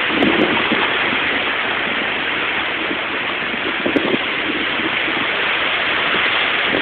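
Hurricane rain and wind, a steady even noise, with a brief knock about four seconds in.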